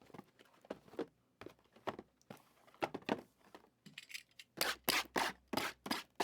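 Plastic wrap on a box of trading cards being cut and torn open: a run of short crackles, tears and clicks that gets busier in the second half.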